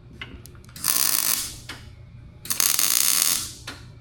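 Welding arc crackling in two short bursts, one about a second in and a longer one past the halfway mark, as tack welds are laid on galvanized exhaust pipe.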